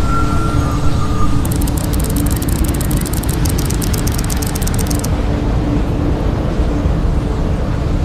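Loud, steady engine-like rumble with a low hum and rushing noise, as from a motor vehicle or boat engine.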